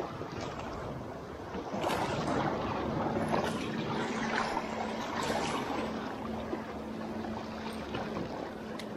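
Shallow seawater lapping and sloshing around a wading person's legs over rocks, in uneven soft swells. A faint steady hum joins in about three seconds in.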